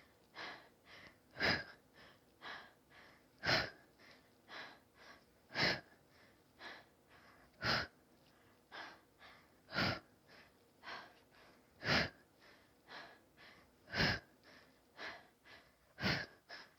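A woman's hard, rhythmic breathing during one-leg bicycle crunches: a strong exhale about every two seconds, one with each contraction, and fainter breaths between.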